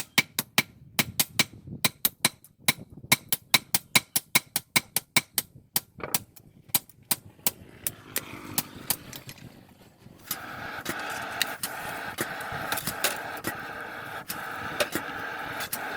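Steady hammer blows on steel, about three a second, slowing and stopping after several seconds; about ten seconds in, a steady motor-driven machine starts running, with occasional clicks.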